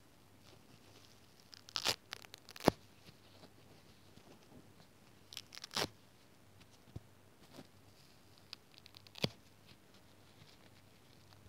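Fingers tearing and pulling apart white sponge foam close to the microphone: three short spells of crackly ripping, about two, six and nine seconds in, with a sharp snap near three seconds.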